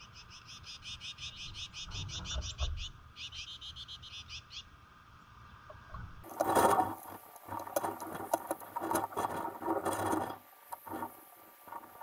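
A small songbird gives a rapid, high chattering trill of about nine notes a second, in two runs with a short break. About six seconds in, a louder, dense, scratchy jumble of clicks and chirps takes over: the yard's sound sped up ten times.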